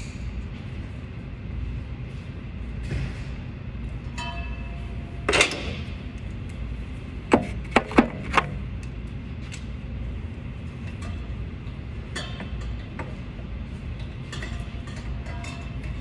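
Metal hand tools clinking and knocking on engine parts under a steady low hum: one loud knock about five seconds in, then four sharp clinks in quick succession around the eight-second mark, with a few short ringing metallic tones.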